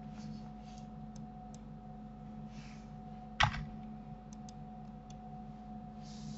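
Scattered light clicks of a computer keyboard and mouse, with one much louder click about halfway through, over a steady low hum.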